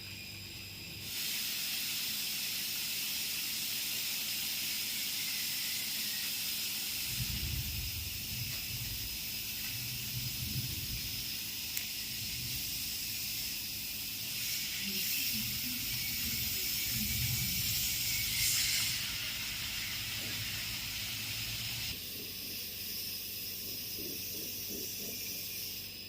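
Steady hiss of gas during repair of a refrigerator's refrigerant pipe, starting suddenly about a second in and holding on, with irregular lower handling sounds in the middle.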